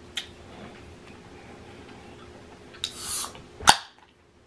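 Table and eating sounds during a meal: a faint click, a short breathy hiss about three seconds in, then a sharp clack, like a spoon or utensil knocking against a dish.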